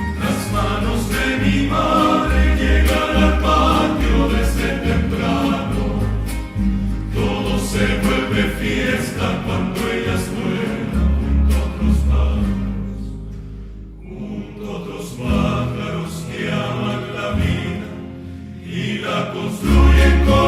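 Film soundtrack music: a choir singing over instrumental accompaniment with a steady low bass. It thins out twice in the second half, then swells again near the end.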